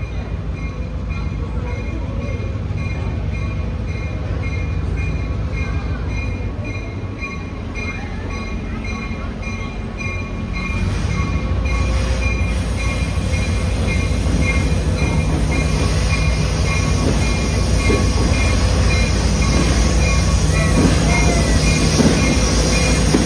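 Train passing, its low rumble and wheel noise growing louder about ten seconds in, with squealing wheels. A high ringing tone pulses several times a second throughout.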